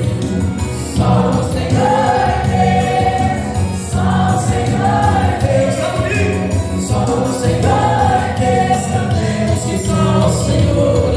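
Two men singing a Portuguese gospel worship song together into microphones, amplified over an instrumental accompaniment.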